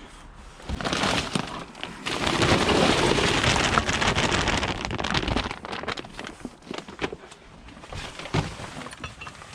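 Rubbish being rummaged through in a bin: dense rustling and clattering with many small clicks, loudest in the first half and then fainter, scattered knocks.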